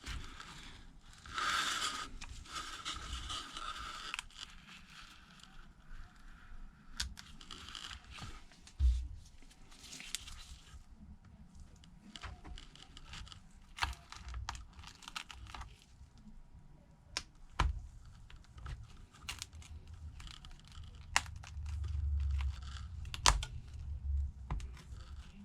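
Glued iPad Air digitizer glass being pried up with a thin steel dismantler tool: the adhesive tears and peels with a hissy scraping for a few seconds near the start, followed by scattered sharp clicks and taps of the tool and glass and a few low bumps toward the end.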